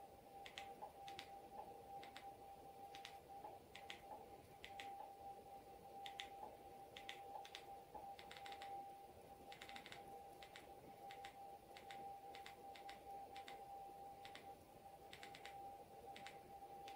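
Faint, irregular clicks, about one or two a second and some in quick pairs, as a projector's settings menu is stepped through with button presses. A steady faint tone runs underneath.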